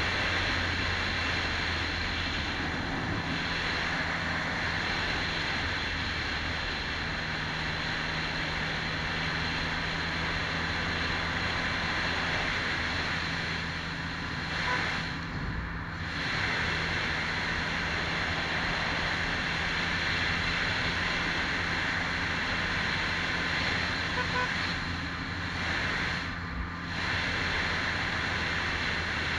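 Can-Am Spyder F3S three-wheeler under way, its Rotax 1330 three-cylinder engine running steadily at cruising speed under loud wind rush on the microphone. The engine note shifts a few seconds in, and the sound dips briefly twice, about halfway through and near the end.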